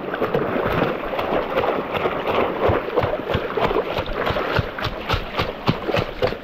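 Shallow running water splashing and churning close by, with many quick splashes, as someone wades and gropes for fish by hand.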